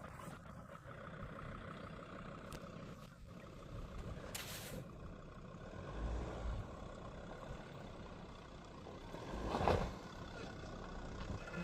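Jeep Grand Cherokee WJ's 2.7 CRD five-cylinder turbodiesel running as it drives over rough ground, a steady low rumble. A short hiss comes about four seconds in, and a louder thump near the end.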